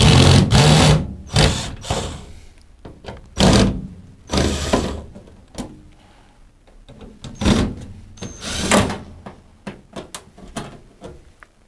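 Screws being undone from a tumble dryer's sheet-metal back panel: a series of short, loud bursts of tool noise and knocks, coming every second or two.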